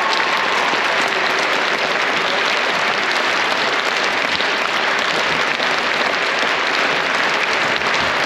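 A large audience applauding steadily: dense, continuous clapping.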